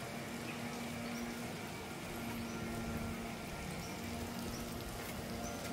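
Steady outdoor background noise with a low hum that drops out now and then, and a few faint, short high chirps.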